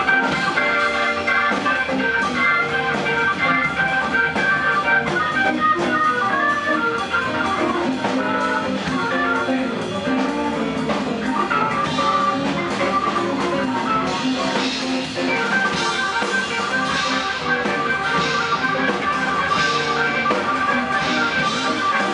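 Live blues from a Hammond B3 organ, electric guitar and drum kit playing together.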